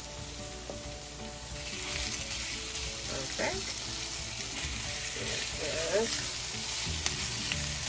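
Raw beef strips sizzling as they are laid into hot olive oil with sautéed onion and garlic in a nonstick frying pan. The sizzle grows louder about two seconds in as more strips go into the pan.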